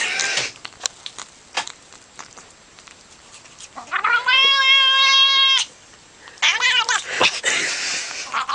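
Domestic cat vocalizing: a short raspy call at the start, then scattered faint clicks, then one long steady meow about four seconds in, and a wavering, raspier call near the end.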